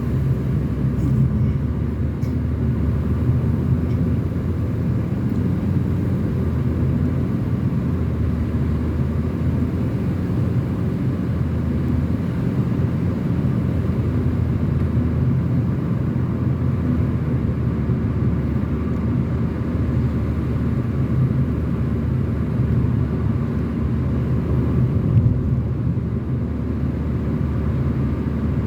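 Car driving at a steady speed of around 58 km/h on a mountain highway: a steady low rumble of engine and tyre road noise.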